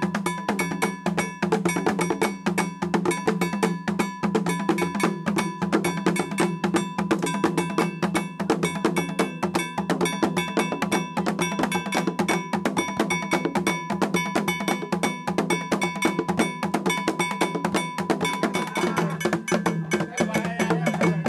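Ghanaian traditional drumming: hand drums struck in a fast, continuous rhythm over a bell ringing steadily.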